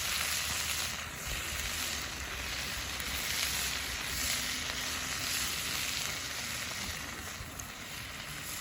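Pork frying in a cast-iron skillet, a steady sizzle of fat and juices that eases off slightly near the end.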